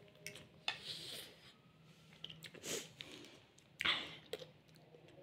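A person slurping and chewing noodles: soft, wet, irregular mouth sounds, with a louder short burst about four seconds in.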